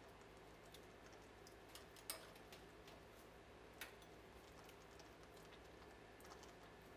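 Near silence with sparse light clicks of a metal spoon against a stainless steel pan as wet, dyed yarn is stirred, two slightly louder clicks about two and four seconds in.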